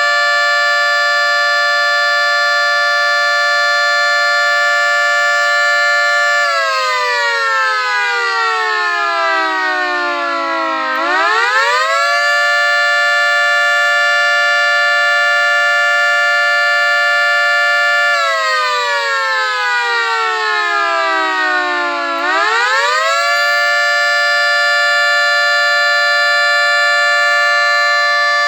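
1/3-scale 3T22A dual-tone electromechanical siren at full speed, sounding a steady two-note chord. Twice it winds down over about four seconds in a falling wail, then quickly spins back up to full pitch. The wind-downs are quicker than normal because its motor has badly worn bearings.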